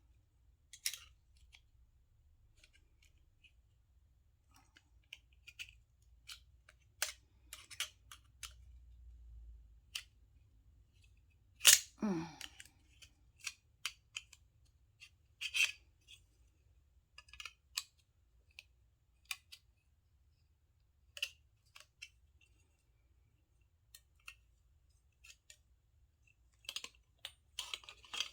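Metal doorknob parts and hand tools clicking and clinking irregularly as a doorknob is taken apart. One loud clack about twelve seconds in, with a brief falling ring after it.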